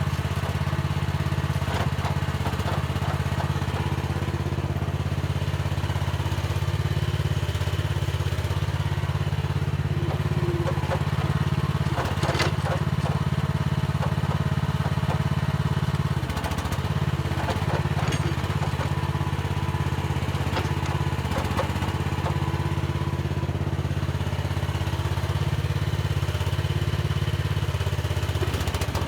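Mini excavator's diesel engine running steadily under work, with scattered clanks and scrapes through it and a sharper clank about twelve seconds in.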